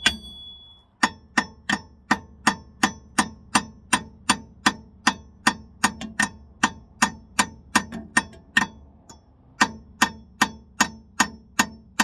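Steady hammer blows on the steel hub and bearing of a 2014 Scion xB's rear wheel, about three sharp ringing strikes a second, driving out the old wheel bearing assembly. The blows start about a second in and pause briefly near nine seconds.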